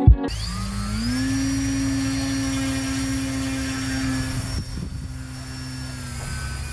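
Brushless electric motor and propeller of a Phoenix TW-742-II RC glider running up with a rising whine, then holding a steady pitch; the whine wavers about four to five seconds in and fades near the end as the model climbs away. Wind rumbles on the microphone underneath.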